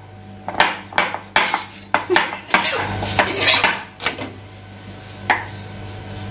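Steel spatula scraping and tapping against a tawa (flat griddle pan) while pressing and turning a roti, in irregular clatters that are thickest in the first four seconds. A low steady hum runs underneath.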